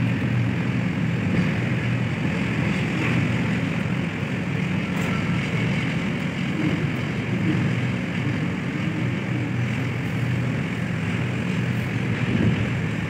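Heavy cargo-handling machinery running with a steady low drone and constant hum.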